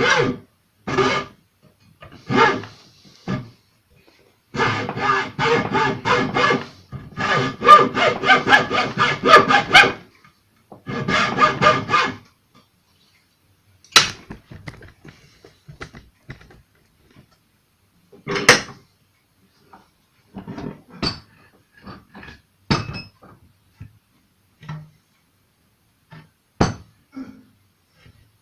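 Fast, rhythmic rubbing strokes on wood in two long bursts, like hand sawing, then scattered knocks and taps.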